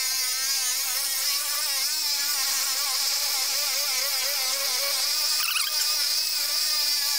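Electric carving knife running, its two serrated back-and-forth blades sawing through dirt bike seat foam: a steady buzz whose pitch wavers slightly as the load on the blades changes.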